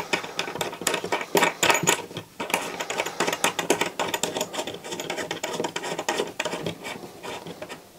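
Quick, irregular metallic clicking and scraping as a coaxial cable plug is turned and screwed by hand onto the antenna's socket, fading out near the end.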